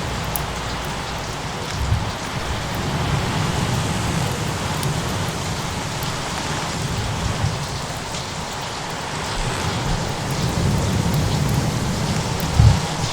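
Mixed storm ambience: a steady hiss of rain and waves over a low rolling rumble of thunder, with fine crackles scattered through. Two short low thumps stand out, about two seconds in and near the end.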